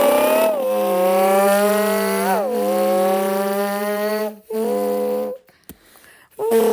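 A person's voice imitating a supercharged Dodge Challenger SRT Hellcat engine: a long, steady, buzzing held note with a quick up-and-down pitch swoop a little past two seconds in. It then gives a shorter burst, a brief pause and a fresh start near the end.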